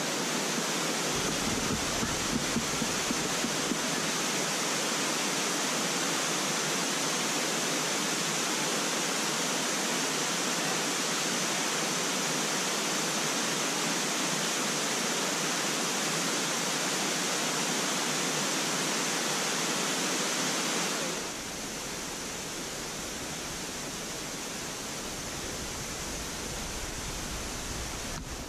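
Steady rushing of a small stepped waterfall cascade pouring into a river pool. About two-thirds of the way through it becomes a little quieter and duller, with more low rumble.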